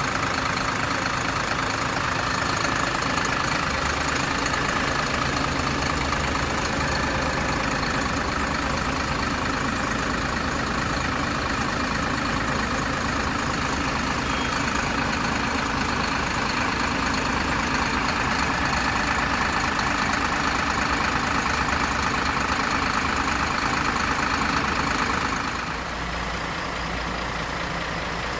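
Hino diesel engine of a rear-engined coach idling steadily, heard close to the rear engine grille. It grows fainter near the end.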